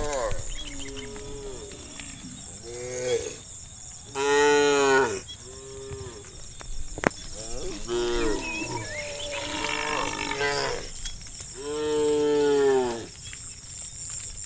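Cattle in a herd mooing, one call after another and sometimes overlapping, the loudest two about four and twelve seconds in. A steady high hiss runs underneath.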